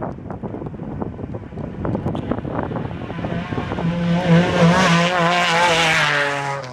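Off-road race vehicle's engine drives past. Its note wavers up and down with the revs, is loudest about four to six seconds in, then drops in pitch and fades as the vehicle moves away.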